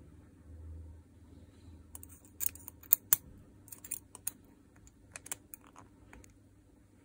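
Sharp little metal clicks and scrapes from a steel pick and tweezers prodding at the bearing and ring inside a cordless drill's metal gearbox housing. A quick irregular run of ticks comes about two seconds in and dies away by about six seconds, with the loudest pair near three seconds.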